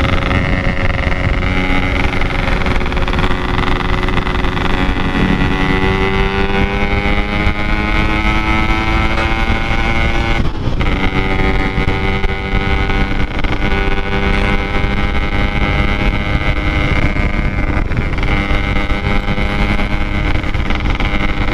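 Yamaha RX-King 135 cc single-cylinder two-stroke motorcycle engine running through a Packing Power exhaust while riding. Its pitch climbs slowly, breaks briefly about ten seconds in, then holds steady, with wind on the microphone.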